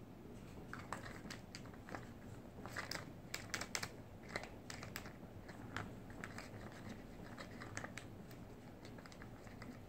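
A cat pawing a plastic ball around the covered track of a ball-track cat toy: a string of light, irregular plastic clicks and rattles, busiest about three to four seconds in.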